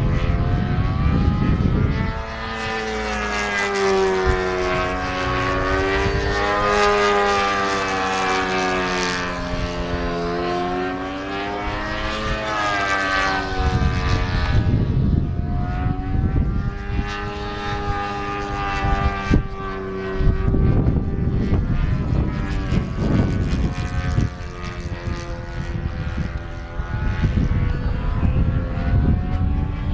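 Extra 300 58-inch RC aerobatic plane flying overhead, its motor and propeller note swinging up and down in pitch as it manoeuvres. From about halfway a low rumble of wind on the microphone runs under it.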